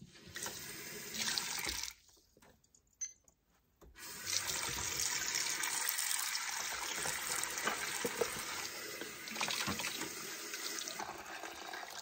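Kitchen faucet running into a metal pot of soapy water as dishes are rinsed under it. The water stops for about two seconds, with a single click, then runs steadily again for several seconds.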